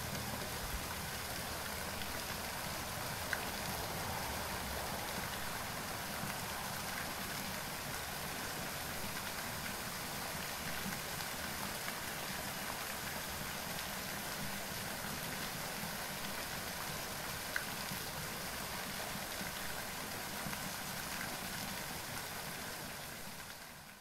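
Small waterfall: a thin stream of water dropping off a rock overhang and splashing steadily into a shallow pool. The sound fades out near the end.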